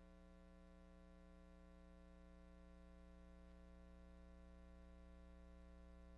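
Near silence with a faint, steady hum that does not change.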